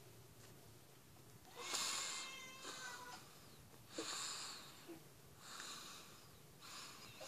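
Recorded cat meows played from a TV: about five separate calls, the first and longest about two seconds in, the rest shorter.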